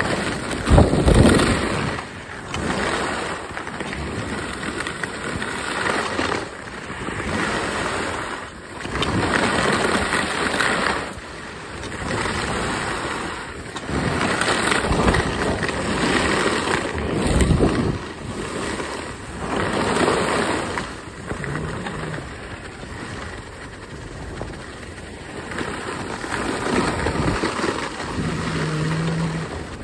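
Wind rumbling on a phone's microphone and skis scraping over groomed snow while skiing downhill, the noise swelling and fading every few seconds.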